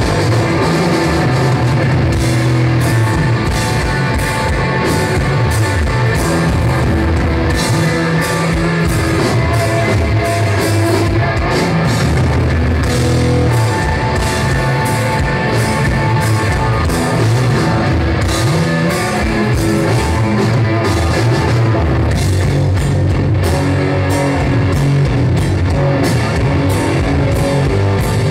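Heavy rock band playing loud live: distorted electric guitar and bass guitar over a drum kit with steady cymbal hits.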